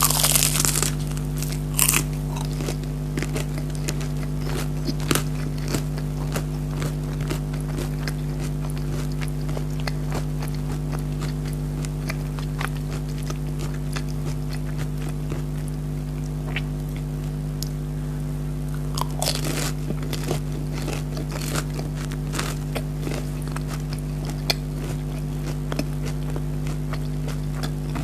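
Close-up eating sounds of crispy breaded chicken nuggets: a loud crunching bite at the start, another about two seconds in and another about two-thirds of the way through, with wet chewing and small crackles in between. A steady low electrical hum runs underneath.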